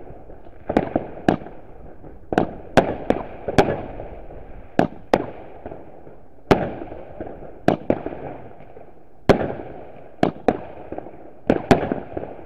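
Fireworks going off: a rapid, uneven string of sharp bangs from aerial bursts, about one or two a second, each one echoing, over a constant crackle of more distant fireworks.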